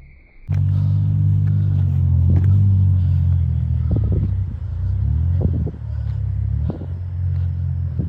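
A loud, steady low rumble with a deep droning hum, starting abruptly about half a second in, with a few faint knocks over it.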